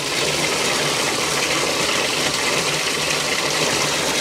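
Water running steadily into a cattle water trough.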